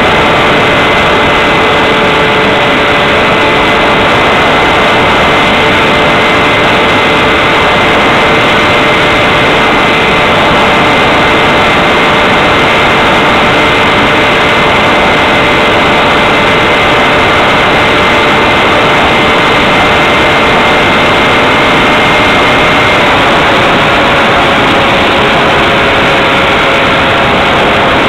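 Multiplex Xeno flying wing's electric motor and propeller running steadily in flight, heard from the onboard camera as a loud, constant hiss with a few steady whining tones. About 23 s in, as the plane banks into a turn, the highest tone drops out and the pitch shifts slightly lower.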